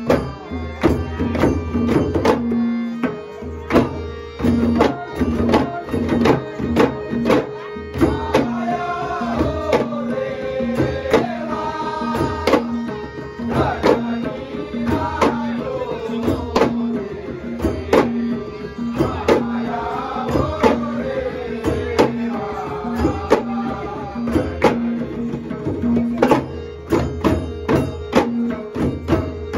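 A group of ghumat clay-pot drums, skin stretched over the pot's mouth, beaten in a fast steady rhythm with tabla and a harmonium. Through the middle, a man's strong voice sings a traditional Konkan Shimga song over the drumming.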